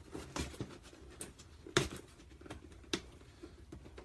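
Toy packaging being opened and handled: scattered light rustles and sharp clicks of cardboard and plastic, the loudest a little under 2 seconds in and again about 3 seconds in.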